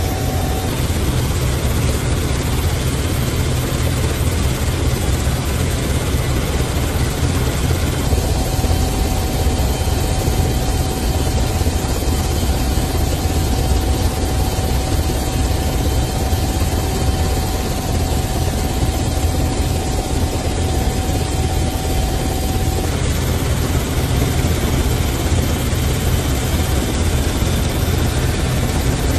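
Helicopter engine and rotor noise: a steady, heavy drone with a thin high whine that sets in about a quarter of the way through and drops out later on.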